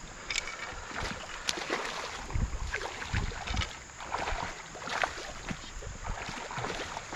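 Irregular splashing and sloshing of shallow creek water as a wading angler moves through it and a hooked smallmouth bass thrashes at the surface while being netted.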